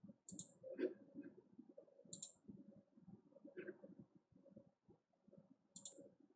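Near silence: room tone with three brief, faint, high-pitched clicks, spaced a couple of seconds apart.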